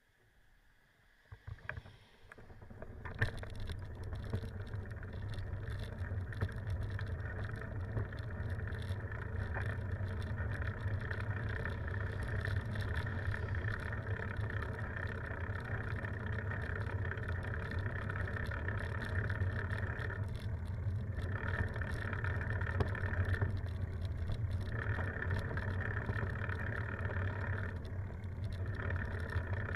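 A bicycle setting off from a stop with a few clicks, then steady wind rushing over the microphone and tyre rumble as it rolls along a paved road.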